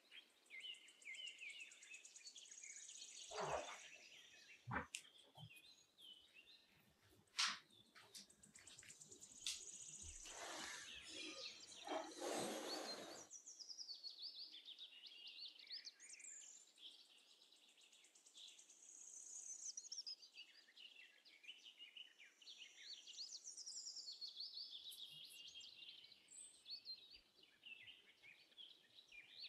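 Faint birdsong: high-pitched chirps and trills that keep coming and going, with a few short knocks and a brief rustle in the first half.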